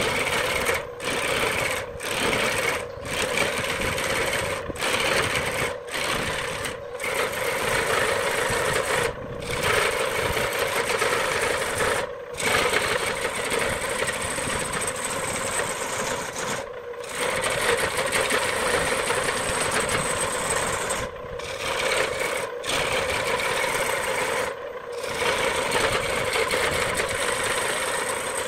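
A hand-held turning tool cutting into a large wooden blank spinning on a wood lathe, giving a continuous rough scraping and rasping of wood being cut away. The sound drops out for brief gaps, about once a second at first and then every few seconds.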